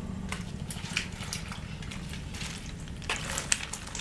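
Wet crackling and small splashes in shallow muddy water as small fish are picked out by hand, over a steady low hum. A few sharper splashes come about three seconds in.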